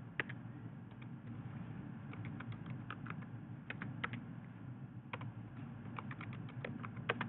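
Typing on a computer keyboard: short runs of keystrokes with brief pauses between them, over a low steady hum.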